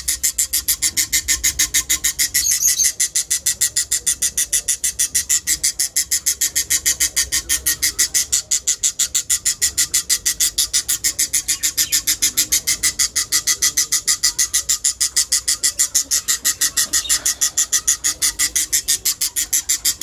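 Budgerigar chick calling over and over, short high-pitched calls several a second in an even, unbroken rhythm.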